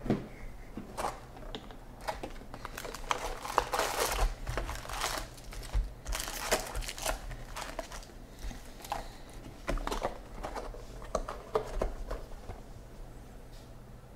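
Foil card packs crinkling and rustling as they are pulled by hand from an opened cardboard hobby box and set down in a stack, in irregular bursts with a few sharp knocks.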